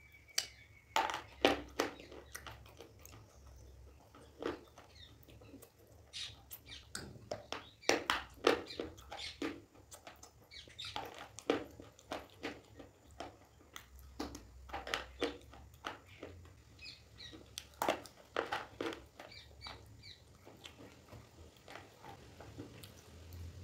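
Close-miked chewing of pieces of white shale stone (slate-pencil type): crisp crunches that come in short bursts with pauses between them.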